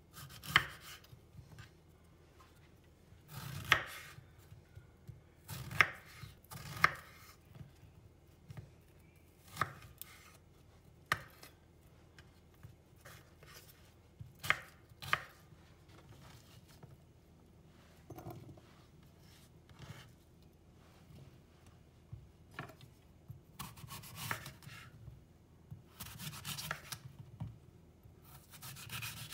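Knife on a cutting board during food prep: sharp knocks at irregular gaps, often a few seconds apart, with softer scraping sounds in the last few seconds.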